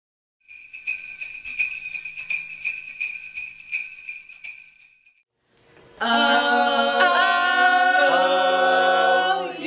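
Jingle bells shaken for about five seconds, then after a short pause a group of voices singing a cappella in harmony, holding long notes.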